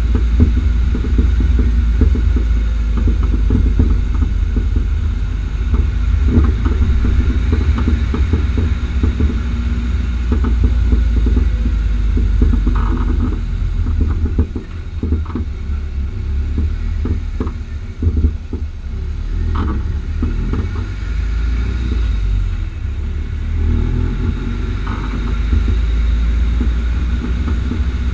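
Car suspension with a steady low road-and-engine rumble, broken by many short pops and knocks from a front right coilover (Bilstein PSS9 damper with H&R springs). There are also a few short squeaks. The fault persists after two repairs, and the owner does not know its cause.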